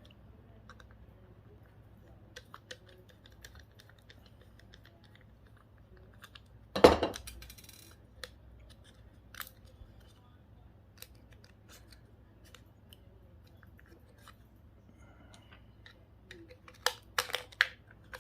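Hand tools snipping and prying apart a small GPS unit: scattered light clicks, one loud snap about seven seconds in, and a quick run of sharp snips near the end.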